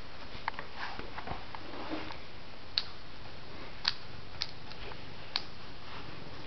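Scattered light clicks and ticks over a steady hiss. The four loudest come in the second half, about a second apart.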